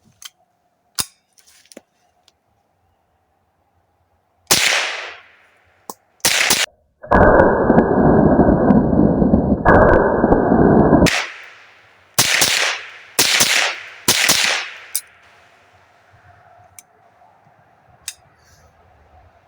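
Savage Model 62 semi-automatic .22 LR rifle firing single shots, about six in all, each sharp crack followed by a brief ring. Between the shots comes a loud, steady rushing noise lasting about four seconds, which stops suddenly. The last three shots come about a second apart.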